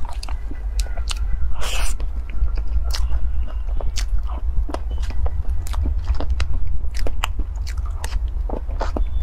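Close-miked eating of soft cream cake: wet chewing with many irregular lip smacks and mouth clicks, and a short scrape about two seconds in, over a steady low hum.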